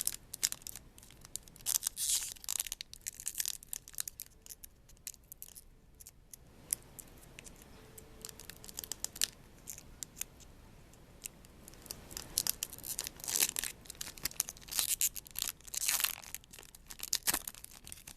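Foil booster pack wrapper being torn open and crinkled by hand, in several bursts of crackling, the busiest near the end.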